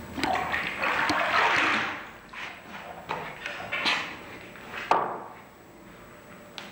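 Liquid ceramic glaze splashing and dripping for the first two seconds, followed by several sharp clinks of glazed earthenware pots knocking together.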